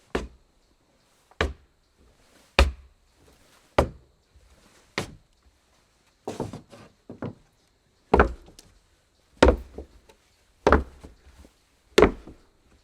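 Slow footsteps on a wooden floor: about ten hard, knocking steps, roughly one every second and a bit.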